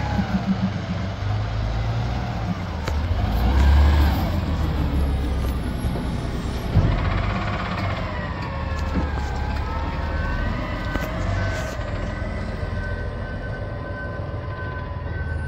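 CNG Autocar ACX garbage truck with a Python automated side-loader body driving slowly around a cul-de-sac: engine rumble with a whine that rises and falls in pitch, a sharp knock just before 7 s, then a steady high whine from about 10 s in.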